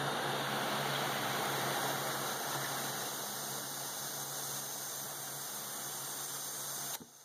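Compressed air hissing steadily through an air chuck into a riding-mower tire's inner tube, inflating it to push the tire bead onto the rim. The airflow cuts off suddenly about seven seconds in.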